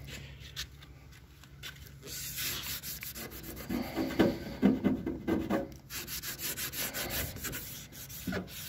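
Cloth rag rubbing back and forth over a freshly spray-painted steel truck door edge, wiping off paint sprayed over petroleum jelly. The strokes start about two seconds in and run on unevenly, with squeaky rubs in the middle.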